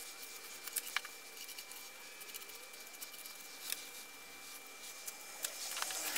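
Gloved hands packing and pressing a damp, gritty cement-and-perlite mix, a faint crunching and scraping with scattered small clicks.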